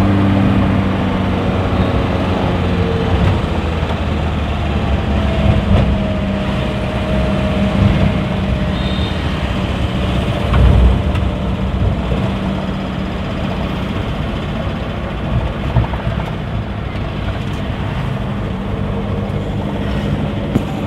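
Suzuki Carry's engine and road noise heard from inside the cabin while driving, a steady low hum at first that sinks into a rumbling road noise. There is one low thump about halfway through.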